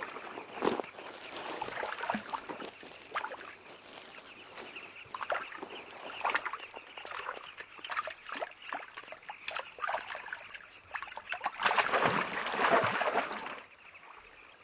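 Water splashing and sloshing in the shallows as a crocodile snaps up carmine bee-eaters fluttering at the water's edge, with many short splashes and a louder stretch of thrashing splashes near the end.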